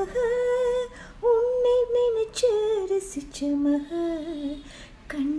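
A woman singing a slow melody in long held notes that bend up and down. The notes drop lower in the middle and rise again near the end.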